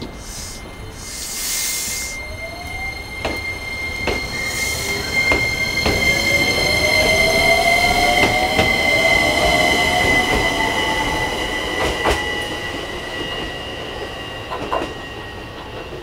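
JR Kyushu 815 series electric train pulling out and accelerating past. Its motor whine rises in pitch as it gathers speed, over steady high-pitched tones, with sharp clicks from the wheels along the track. A short hiss comes near the start, the sound is loudest as the cars pass, and it then fades as the train draws away.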